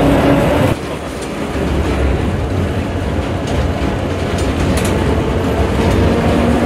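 Vintage electric tram running on street track, heard from inside the car. A steady motor whine cuts off abruptly about a second in, leaving a steady low rumble of wheels on rails with a few sharp clicks. A fainter whine comes back in the second half.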